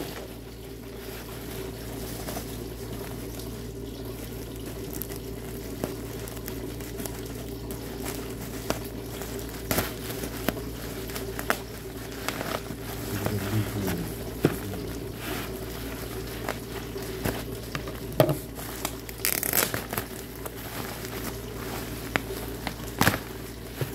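Black plastic mailer bag rustling and crinkling in the hands as a parcel is turned over, in scattered crackles with a denser burst about three quarters of the way through. A steady low hum runs underneath.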